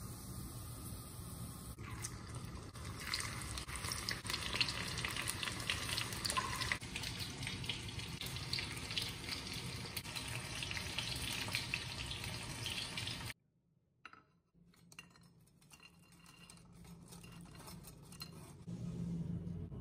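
Hot oil sizzling and crackling around chicken pakoras deep-frying in an iron kadai, a dense patter of fine crackles. It cuts off suddenly about two-thirds of the way through, leaving only faint scattered crackles and a low hum near the end.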